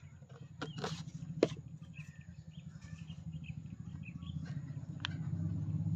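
Outdoor ambience: birds chirping faintly over a steady low rumble that grows louder toward the end, with a few sharp clicks.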